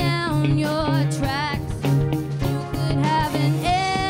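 Live band performance: a woman singing lead over electric guitar, bass guitar and keyboard, with a steady beat. She holds a long wavering note near the end.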